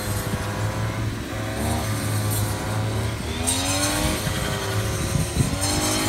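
Petrol brush cutter's small engine running steadily, its pitch rising and falling several times as it is throttled up to cut rice stalks.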